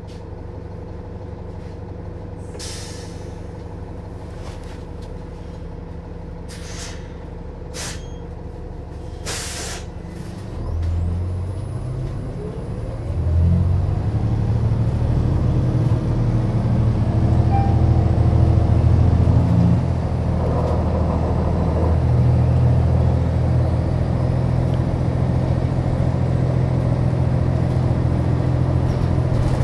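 Cummins ISL9 diesel engine of a New Flyer XDE60 hybrid articulated bus idling, with several short hisses of compressed air from the air brake system. About ten seconds in, the engine speeds up and runs louder, stepping up again a few seconds later and holding at the higher level.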